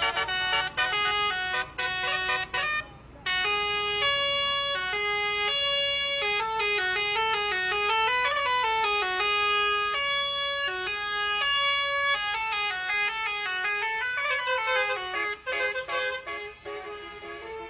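A Basuri-type 'telolet' multi-tone bus horn plays a melody of stepped notes. It opens with quick short blasts and breaks off briefly about three seconds in. Longer held notes follow, with siren-like sliding glides about eight and fourteen seconds in.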